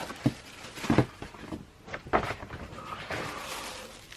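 Handling noises: soft rustles and a few light knocks as a T-shirt is handled and shown.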